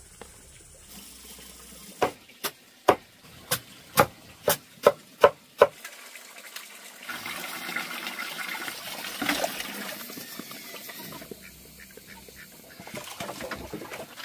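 About nine sharp knocks, two or three a second, then hands kneading and squelching a wet mash of chopped greens in a plastic basin.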